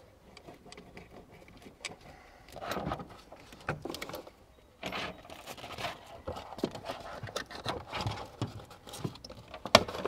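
Hands handling the negative cable clamp of a 12 V car battery and bagging it in a clear plastic bag: plastic crinkling and rustling with small metallic clicks, a sharp click near the end.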